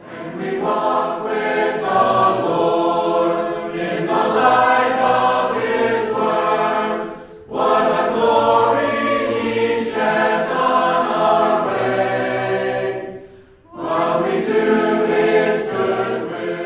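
A group of voices singing a hymn unaccompanied, in three long phrases with brief pauses between them.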